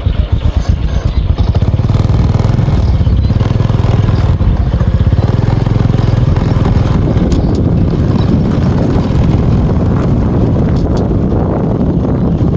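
A small engine running steadily and loudly, with a fast pulsing near the start, under a deep rumble that may come partly from wind on the microphone.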